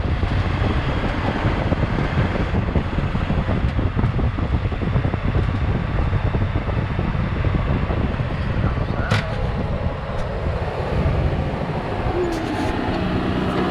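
Wind buffeting the microphone with a steady low rumble from a moving vehicle, and one sharp click about nine seconds in.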